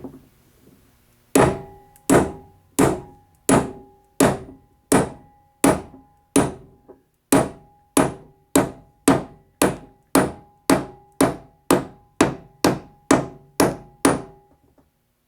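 Hammer blows driving a new spindle bearing into a Case 224 mowing deck's spindle housing until it seats. There is a single knock, then about twenty steady strikes, each with a short metallic ring, starting near one a second and quickening to about two a second before stopping.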